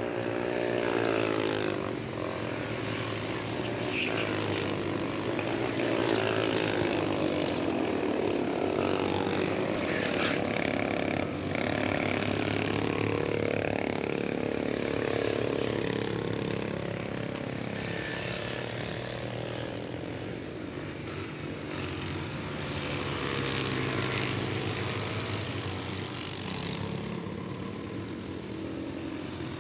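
Go-kart engines running as karts lap the track, their pitch rising and falling as they slow and speed up.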